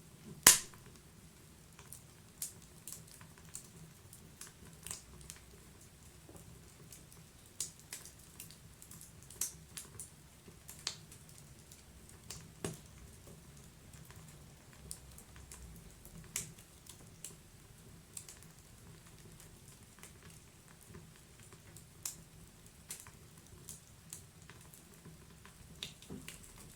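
Wood fire burning in a fireplace, crackling with scattered sharp pops, one louder pop about half a second in, over a faint low hiss of the flames.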